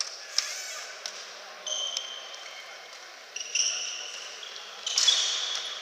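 Indoor tchoukball play: a few sharp knocks of the ball near the start, then three high squeaks of about half a second each, the last the loudest, typical of shoes on the sports hall floor.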